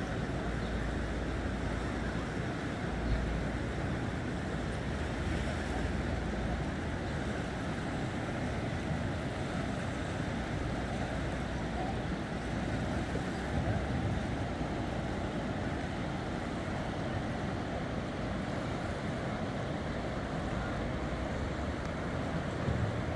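Steady rushing of the Neckar river in flood, fast high water running past the bank, with gusts of wind buffeting the microphone in the first few seconds.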